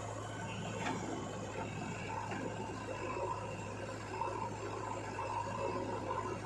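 Diesel engine of heavy earth-moving machinery running steadily with a low hum, with a light click about a second in.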